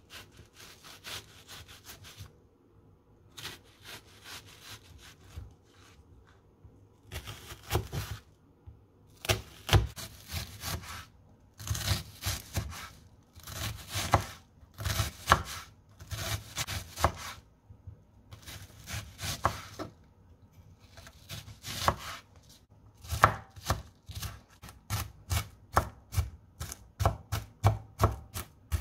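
Kitchen knife slicing and dicing a peeled onion on a wooden cutting board: runs of quick knocks as the blade cuts through and strikes the board, broken by short pauses, then a steady run of even chopping strokes near the end.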